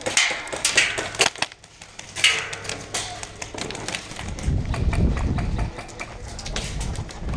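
A run of sharp, irregular snaps and knocks, bunched in the first couple of seconds, then a low rumbling noise around the middle.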